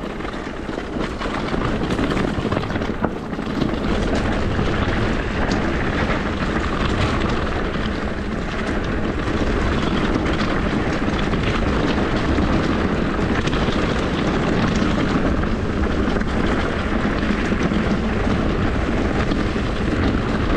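Steady rushing ride noise from an electric mountain bike descending a downhill trail: wind and tyre roar with small rattles and clicks scattered through it.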